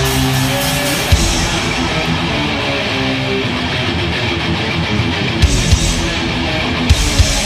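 Heavy metal band playing live: distorted electric guitars playing a riff over bass, with a few sharp drum hits.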